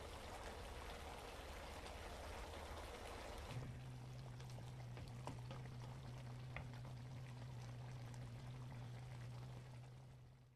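A spicy chicken and vegetable braise sizzling in a frying pan. After a cut about three and a half seconds in, the saucy stew simmers with a few scattered bubble pops over a steady low hum, fading out near the end.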